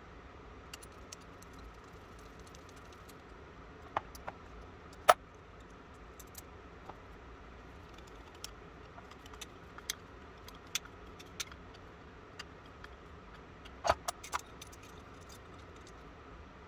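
Small metallic clicks and taps of an antique boot pistol's lock parts and a steel screwdriver being worked by hand, scattered and irregular, with a sharper click about five seconds in and a quick run of three clicks near the end.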